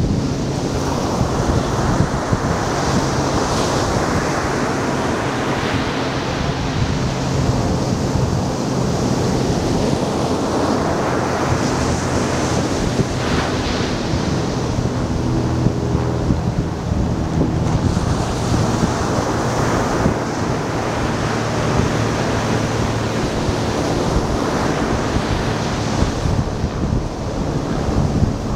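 Ocean surf breaking and washing up a sand beach, swelling and ebbing every few seconds, with wind buffeting the microphone.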